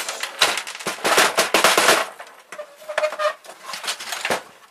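Office printer's plastic chassis being turned over and shaken: a rapid clatter of loose small parts rattling inside and dropping out. The clatter is densest for the first two seconds, then thins to scattered clicks and knocks.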